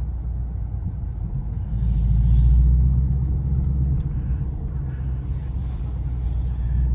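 Ford Mustang Mach 1's V8 rumbling low and steady at slow rolling speed, heard from inside the cabin. The rumble swells briefly about two seconds in, and there are two short spells of hiss.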